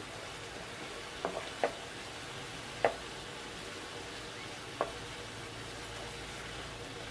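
Pangasius fillet and sliced onions sizzling gently in teriyaki sauce in a nonstick frying pan, as a utensil stirs the onions. There are several sharp taps of the utensil against the pan, the loudest about three seconds in.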